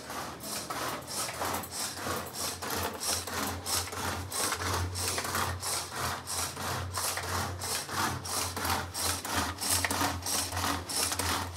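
Rhythmic scraping strokes of a kitchen tool working food at the counter, about three strokes a second, over a low steady hum.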